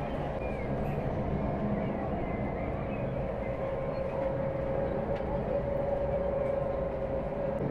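Steady rumble of a moving vehicle with a constant mid-pitched hum over a lower hum.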